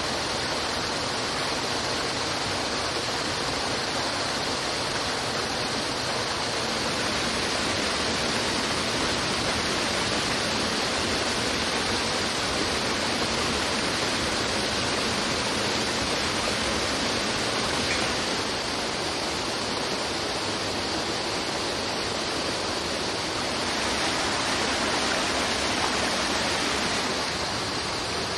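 Rushing stream water over rocks, a steady wash of noise that changes level slightly a few times, with a faint steady high tone above it.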